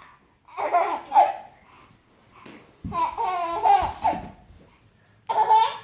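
Baby laughing in three bursts; the middle one is the longest and pulses quickly.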